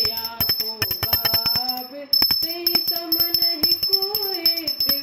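Devotional aarti music: a melody over fast, steady jingling percussion, with a brief drop just before the middle.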